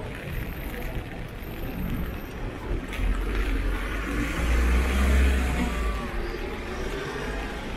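A road vehicle passing on a wet street: its low rumble and tyre noise swell to a peak about five seconds in, then fade.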